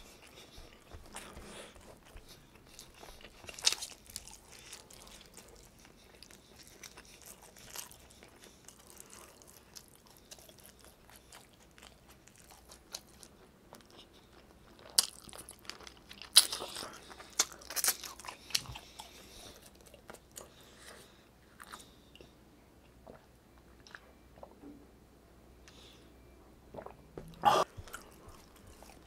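Close-miked eating: a person chewing and biting chicken adobo and rice eaten by hand, wet mouth sounds with scattered sharp crunches and clicks. The loudest crunches come about halfway through and again near the end.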